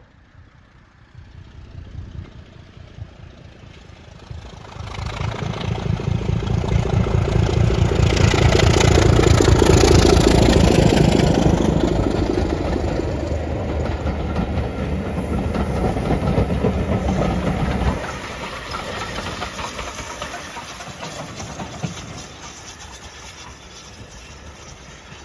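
Passenger train passing: a Class 25 diesel locomotive's engine running as it comes by, loudest a few seconds after it reaches the camera, then the coaches clattering over the rails with a steam locomotive at the rear. The noise drops suddenly about two-thirds of the way through and fades as the train runs away.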